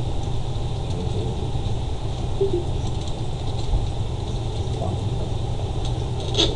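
Steady low hum under constant background noise, with a short click near the end.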